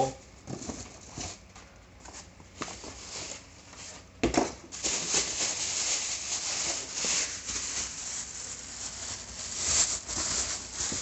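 Plastic bag crinkling and rustling as it is pulled off a spoked wheel, with a sharp knock a little after four seconds in; the first few seconds hold only light handling sounds.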